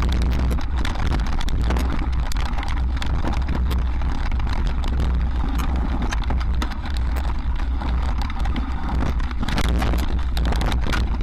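Mountain bike riding fast down a rocky dirt singletrack: a constant rumble of wind and vibration on the microphone, with dense rattling and clicking of the tyres over loose stones and the bike shaking.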